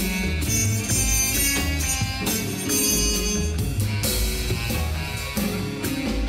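Background music with guitar and drums and a steady beat.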